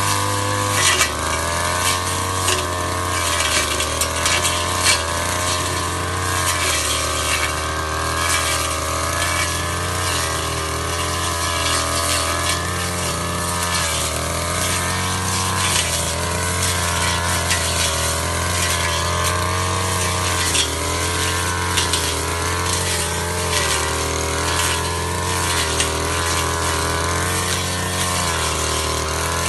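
Two-stroke engine of an Ogawa backpack brush cutter running at high revs while cutting thick brush. Its pitch dips and recovers again and again as the blade takes load, with frequent sharp ticks and clatter from the blade hitting stems.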